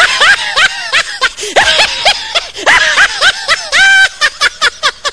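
High-pitched, sped-up cartoon laughter: a rapid run of short cackles, each rising and falling in pitch, with one longer held note near the end.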